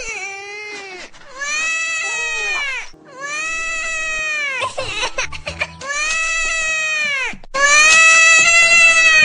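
Crying sound effect for a cartoon character: a run of long, high-pitched wails, each rising and then falling, with the last one the loudest.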